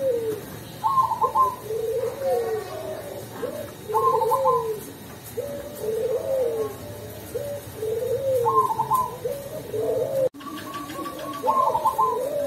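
Caged zebra dove (perkutut) cooing its song: a phrase of a short quick run of higher notes, then rounded, arching coos, repeated about every three to four seconds. The voice is the mellow, deep tone keepers call 'ulem'.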